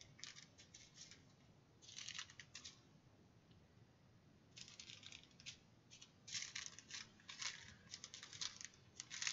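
Small plastic bags of diamond-painting drills being picked up and set down: faint crinkling rustles in short bursts, more frequent in the second half.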